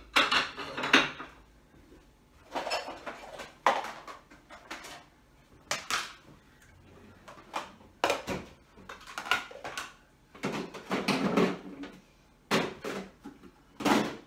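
Dishes and plastic food-storage containers clattering and knocking as they are handled, stacked and set down on a countertop during kitchen tidying. The clatters come in irregular clusters, one to two seconds apart.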